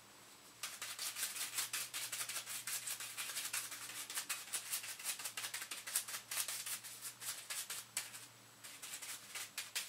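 Bristle brush scrubbing back and forth over a rifle's oiled metal, spreading WD-40 as a rust preventative: quick scratchy strokes, several a second, that start about half a second in and thin out near the end.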